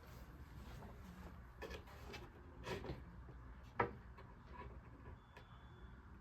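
A few soft knocks and clicks of particleboard closet panels being handled and fitted together, spaced a second or so apart.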